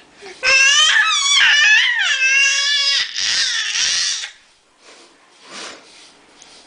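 Baby's high-pitched, wavering squealing scream lasting about two and a half seconds, followed at once by a rougher, breathier scream that stops about four seconds in. A short, faint vocal sound comes near the end. This is a baby's playful screaming, not crying from distress.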